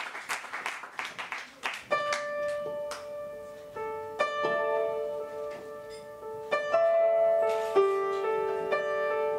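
Applause fading out, then an upright piano begins playing slow, sustained notes about two seconds in.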